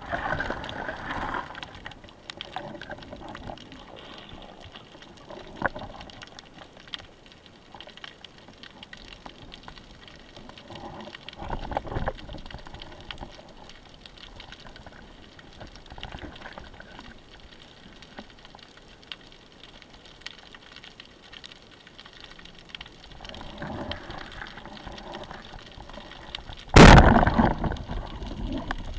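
Underwater ambience picked up by a camera in its housing: a faint water hiss with scattered small clicks and swishing. Near the end comes one sudden, loud, sharp thump, the shot of a rubber-band speargun, which fades over about a second.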